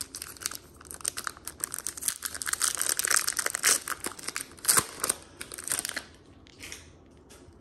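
Foil trading-card pack wrapper being torn open and crinkled by hand: a dense run of crackles that thins out about six seconds in.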